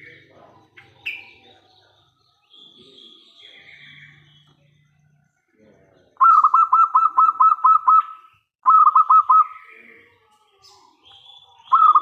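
Zebra dove (perkutut) cooing. About six seconds in it gives a fast run of about eight clipped notes, and a shorter run of about four follows near nine seconds. Fainter chirps of other birds come in between.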